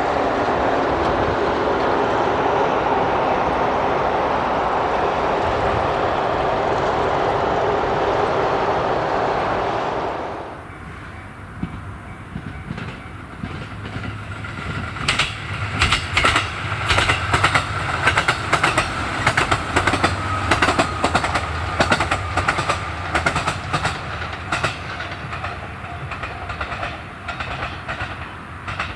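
Steady road-traffic noise that cuts off sharply about ten seconds in. It gives way to a KiHa 200 diesel railcar passing close by, its wheels clicking rhythmically over the rail joints through most of the rest, under a low engine hum.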